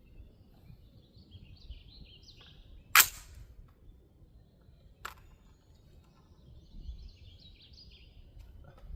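Birds chirping in two short phrases, with a single sharp loud bang about three seconds in and a fainter click about two seconds later, over a low outdoor rumble.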